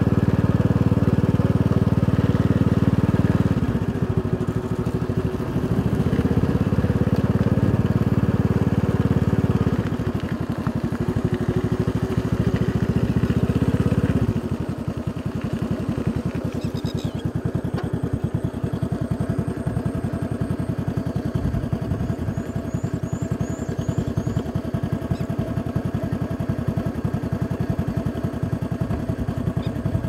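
Motorcycle engine running on the move, with some shifts in level in the first half. About halfway through it drops to a lower, steadier note as the rider eases off.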